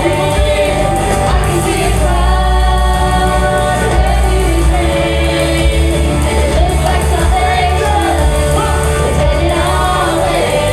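Gospel praise song: voices singing over a band with a strong, steady bass.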